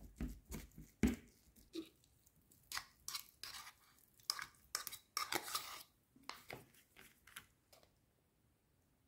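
A metal fork scraping and clinking inside a tin can as it flakes canned tuna, then scraping the tuna out of the tin into a plastic bowl. It is an uneven run of clicks, taps and short scrapes, the sharpest about a second in, that dies away near the end.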